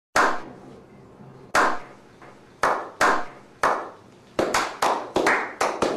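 A group slow clap: single hand claps about a second apart, then from about four seconds in more hands join and the claps come faster, several a second.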